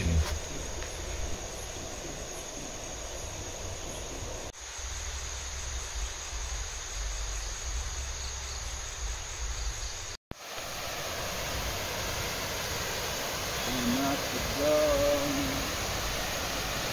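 Steady high insect chirring of a tropical forest at night, with a short low hoot-like call of a couple of notes near the end. The sound drops out suddenly for an instant about ten seconds in.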